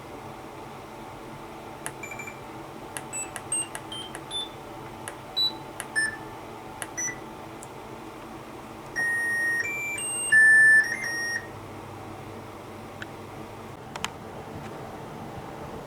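Electronic beeps from a Hitachi BD-V5400 drum washer-dryer's control panel: a string of short beeps of differing pitch as buttons are pressed, then a short tune of several tones about nine seconds in, over a steady low hum.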